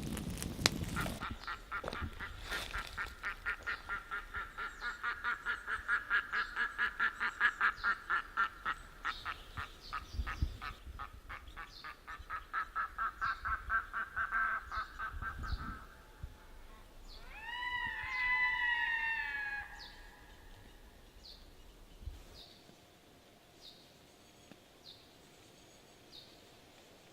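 Wild birds calling. First a long run of quick repeated notes, about four a second, lasting some fifteen seconds. Then a short group of louder calls with a fuller tone, each falling in pitch, followed by a few faint scattered clicks.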